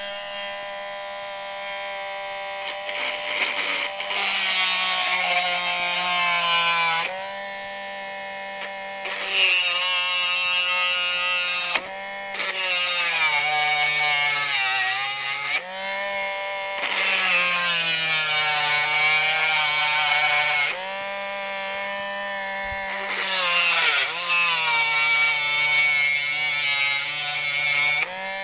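Handheld rotary tool with a chainsaw-sharpening guide, its small burr grinding the cutters of a chainsaw chain. About five grinding passes of a few seconds each bring in a loud high hiss, and the motor's whine drops in pitch as the burr bites. Between passes the motor runs free at a steady pitch.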